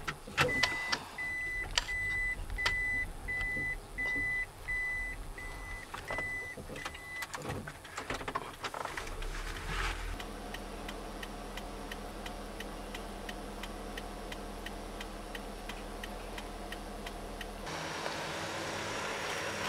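Toyota car's warning chime beeping about ten times in an even series, with a few clunks, then the engine running steadily under a regular ticking.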